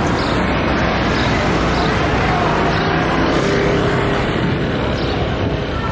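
City street traffic: a steady rush of passing cars and motor engines.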